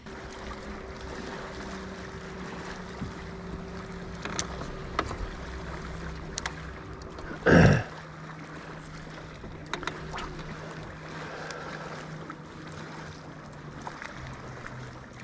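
A bass boat's motor hums steadily as the boat creeps along, with water noise underneath and a few light clicks. About halfway through there is one brief, loud rush of noise.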